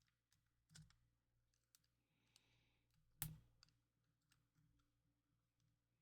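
Faint scattered clicks and taps of small console parts being handled, with one sharper click a little after three seconds and a brief soft rustle just before it.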